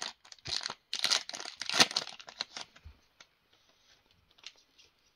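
Shiny plastic trading-card booster pack wrapper crinkling and tearing as it is ripped open and crumpled in the hands, with loud rustling for about two and a half seconds, then only faint scattered rustles.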